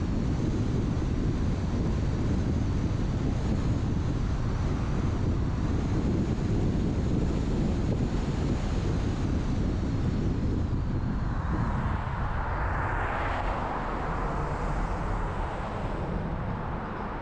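Steady road and wind noise from a car being driven: a low rumble with wind buffeting the microphone. About two-thirds of the way through, a hiss swells and fades.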